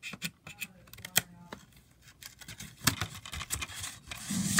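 Handling noise: a scattered string of small clicks and taps, as of hard plastic being handled.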